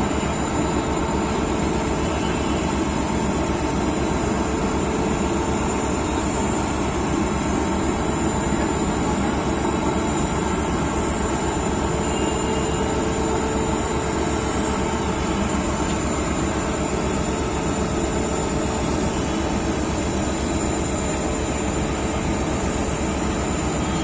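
WAP-7 electric locomotive standing with its blowers running: a steady, even rush of air with a faint hum in it, unchanging throughout.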